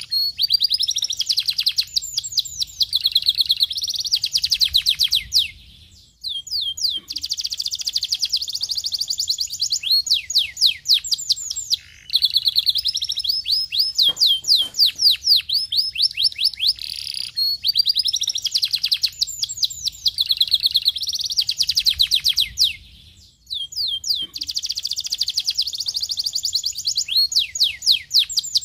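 Domestic canary singing: long, rapid trills of quickly repeated sweeping notes, in extended phrases broken by a few brief pauses.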